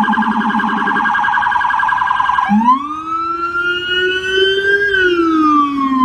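Electronic police siren on an NYPD patrol car: a fast warble that switches about two and a half seconds in to a slow wail, rising and then falling.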